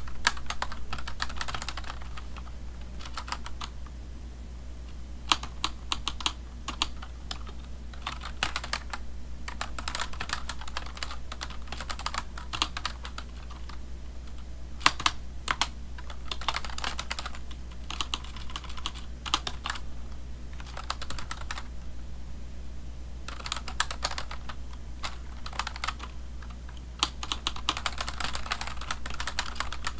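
Typing on a computer keyboard: bursts of rapid keystroke clicks with short pauses between them, over a steady low hum.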